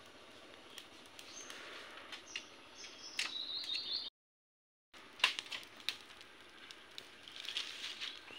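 Wood fire crackling under a pan, with scattered sharp snaps, and birds chirping. The sound cuts out completely for about a second midway.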